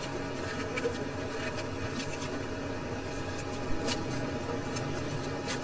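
Steady background hum and noise, with a few faint short clicks.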